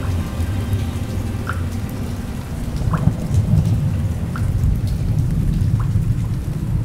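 Rain falling with a deep, steady rumble of thunder under it, swelling a little past the middle, and four single water drops plinking over it.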